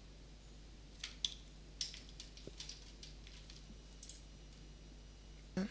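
A few scattered, faint computer keyboard key presses, with a short low thump shortly before the end.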